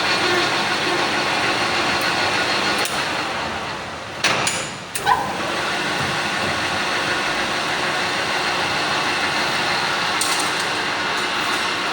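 Manual lathe running with a steady machining noise, as a brake disc rotor is turned. A little past the middle the noise dips and two sharp metallic knocks come about a second apart.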